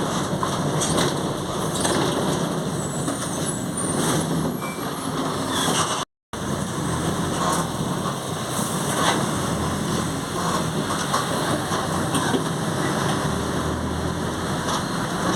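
Mercedes-Benz OF 1722M city bus under way, heard from on board: steady running and road noise with a low growl from the differential. The sound cuts out for a fraction of a second about six seconds in.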